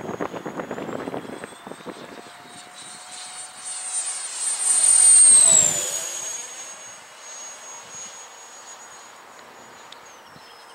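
The 70 mm electric ducted fan of a SAPAC Hawk RC jet model on a 6S battery whines as the jet flies past overhead. The high whine swells to its loudest about five seconds in and drops in pitch as the jet passes, then fades.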